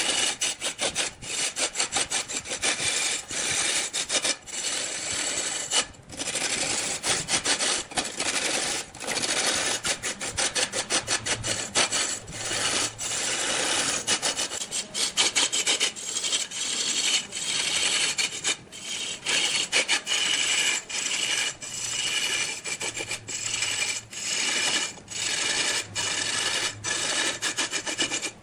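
A long-handled turning tool cutting into a large log of red wood spinning on a big wood lathe: a loud, continuous scraping rasp broken by many quick, irregular ticks.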